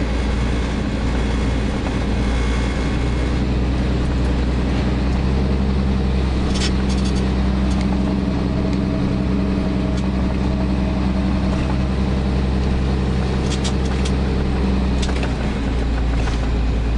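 Vehicle engine and road noise heard from inside the cabin: a steady low hum with a few brief clicks.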